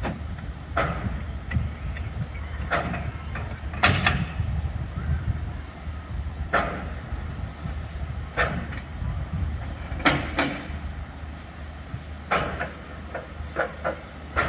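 Railway sounds around a standing narrow-gauge steam locomotive: a steady low rumble with about a dozen irregular sharp clanks and knocks, the loudest about four seconds in and again near ten seconds.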